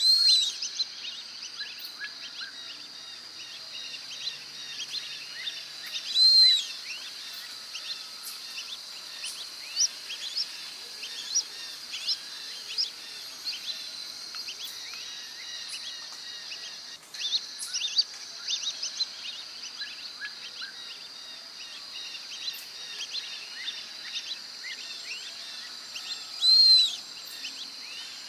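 Brazilian teal giving three loud, high arched whistles, one at the start, one about six seconds in and one near the end. Under them runs a steady high-pitched chorus of insects with many short chirps.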